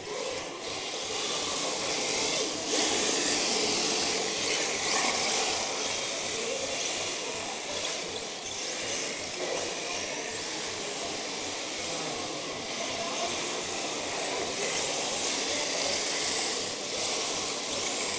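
Electric 1/10-scale RC drift cars running and sliding on a smooth hall floor: a steady high hiss of motors and hard tyres, with a faint rising whine now and then as a car speeds up.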